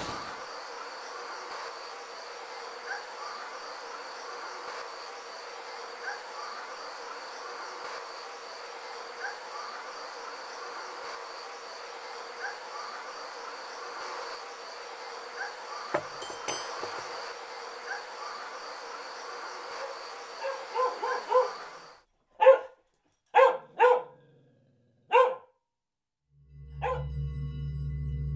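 Night ambience of crickets chirping steadily, then a dog barks a few times over near silence. A low steady musical drone starts near the end.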